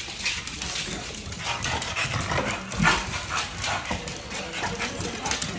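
Two dogs playing on a hard floor: scuffling, with quick claw clicks and a few short whines.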